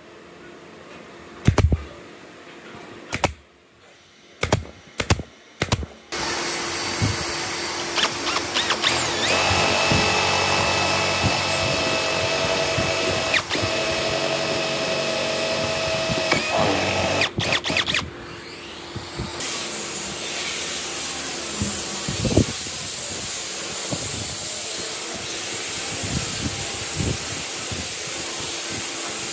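A pneumatic nail gun fires a few sharp shots into a softwood box, then a cordless drill runs at a steady speed as a twist bit bores through the wood. A steady whirring continues afterwards.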